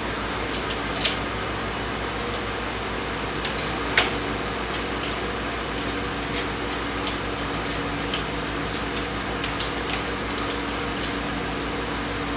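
A few sharp small clicks and taps from plastic and metal parts being handled as a motorcycle handlebar switch housing is fitted back onto the bar, the loudest about four seconds in, over a steady low hum.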